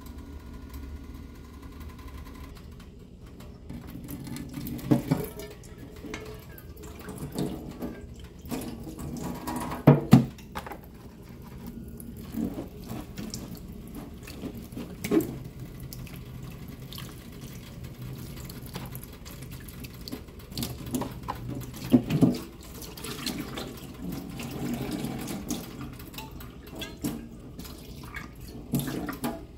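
Kitchen sounds: liquid sloshing and splashing, broken by sharp knocks of a utensil or dish every few seconds, the loudest about ten seconds in and again about twenty-two seconds in.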